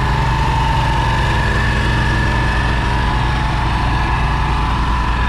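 A passenger boat's engine running at full throttle: a loud, even drone with a steady high-pitched whine over it.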